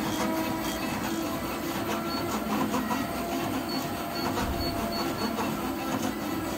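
2006 Shiki FX15 high-speed rotary offset printing press running steadily, with continuous mechanical machine noise, while its speed is turned down from about 145 to 125 shots a minute.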